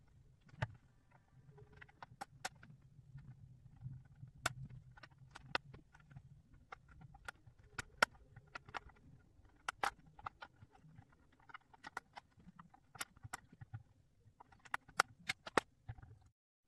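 Plastic pieces of a Ravensburger 3D puzzle ball clicking as they are pressed into place and picked out of a plastic sorting tray. The sharp clicks come at an irregular pace over a low steady hum.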